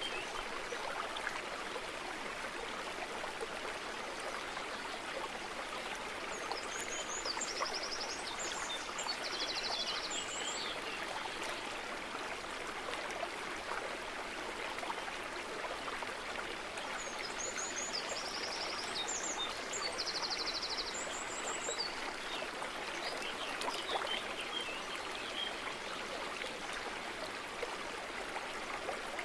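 A steady rushing, water-like noise. A short cluster of high chirps and clicks recurs about every eleven seconds, twice in this stretch, like a looped ambience track.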